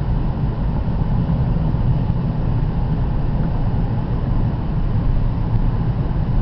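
Car's engine and tyre noise heard from inside the cabin while driving: a steady low rumble.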